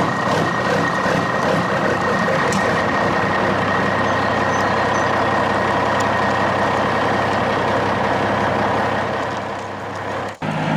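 Truck engine sound running steadily at one level with a faint high whine, cutting off abruptly near the end. Likely a sound effect laid over a toy truck.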